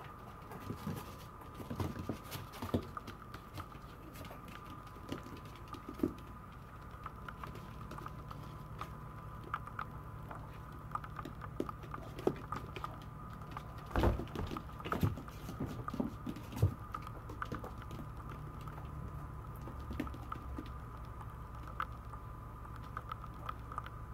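Maltese puppies' paws pattering and clicking on a tiled floor, with scattered light knocks, the loudest about midway. A faint steady tone and hum run underneath.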